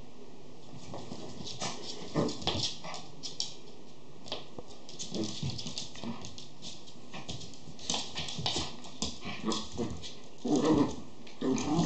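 A schipperke puppy and a miniature pinscher playing over a plush toy: claws clicking and scrabbling on a wooden floor, with brief dog vocal sounds, loudest near the end.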